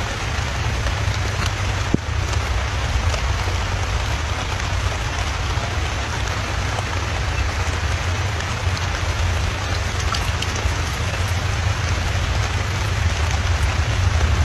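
Steady rain falling, an even hiss with faint scattered drop ticks, over a constant low rumble.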